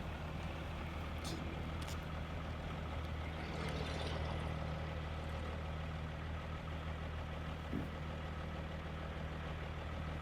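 A truck engine idling steadily, a low even hum with no revving.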